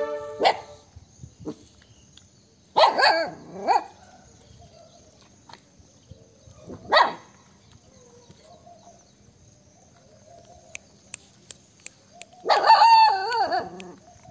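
Dogs barking and yelping a few times: once about three seconds in, a short sharp call near seven seconds, and a longer, loudest call near the end that falls in pitch.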